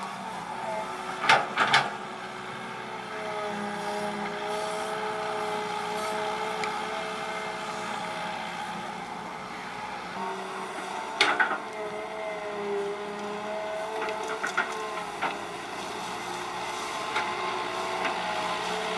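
Hitachi EX120 hydraulic excavator's diesel engine running under load as it digs and swings dirt, its pitch rising and falling with the work. Sharp knocks come in a short cluster about a second in and again about eleven seconds in.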